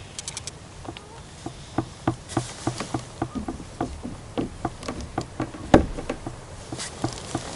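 Light clicks and taps from a baitcasting rod and reel being handled and set into a rod holder on a plastic fishing kayak, with one sharp knock a little under six seconds in.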